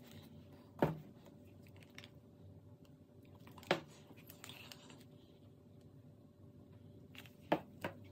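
Clicks and knocks of painting supplies being handled as paint cups and bottles are picked up and set down: four sharp knocks, the last two close together near the end, with faint clicks between.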